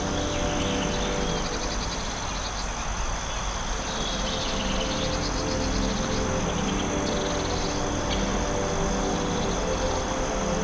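Forest insects chirping in short trains of rapid pulses that come and go, over a steady high-pitched insect drone and a low steady rush of background noise.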